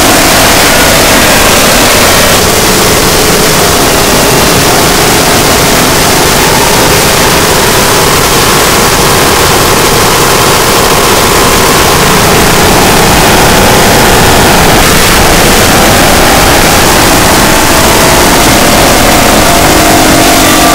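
Harsh noise music: a dense, distorted wall of electronic noise at near full volume, unbroken throughout, with faint held tones shifting to new pitches every few seconds underneath.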